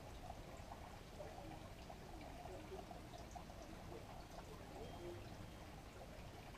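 Quiet, steady background room noise with faint handling sounds as hands work a soft-plastic swimbait trailer onto a swim jig's hook.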